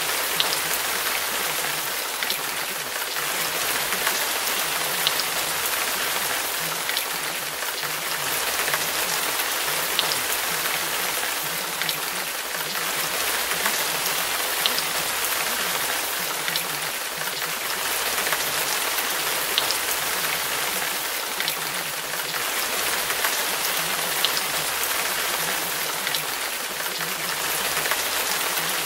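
Steady rainfall: an even hiss of rain with scattered sharp drop ticks.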